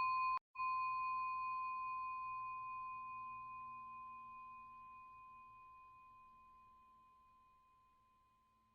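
A single chime tone ringing out and slowly dying away over several seconds, with a brief break about half a second in.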